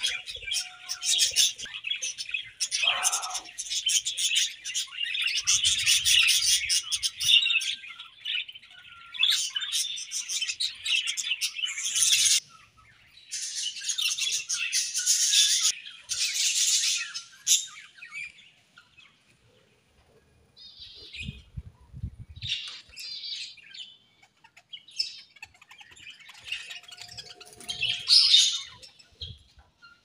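A colony of budgerigars chattering and chirping: dense, continuous warbling for about the first twelve seconds that stops abruptly, then a few bursts of chatter, then sparser single calls with one louder call near the end.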